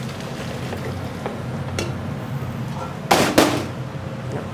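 Metal cookware clanking: two loud knocks close together about three seconds in, with lighter clinks before them, as a roasting pan is emptied through a steel sieve into a stockpot. A steady low hum runs underneath.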